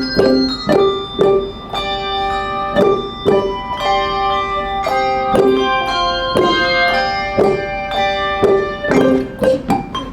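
Handbell ensemble playing a melody: bells struck a few times a second, each note ringing on after its strike, with several notes overlapping.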